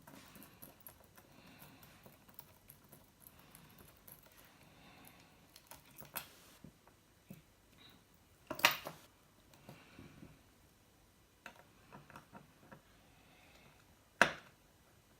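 Light clicks and taps of small steel parts being handled: the links and screws of a Leatherman Tread bracelet being taken apart, with two louder sharp clicks, one about halfway through and one near the end.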